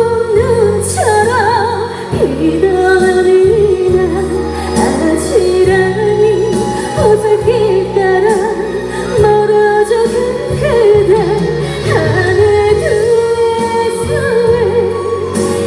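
A trot song playing at a live stage performance: a wavering, vibrato-laden melody line over a steady backing track, with an occasional cymbal-like crash.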